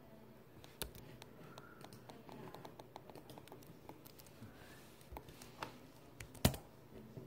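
Quiet handling noise: scattered small clicks and taps of objects being handled, with a sharper knock about six and a half seconds in.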